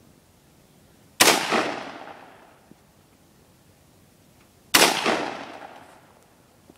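AR-15 rifle fired twice, single shots about three and a half seconds apart, each a sharp crack followed by an echo dying away over about a second and a half.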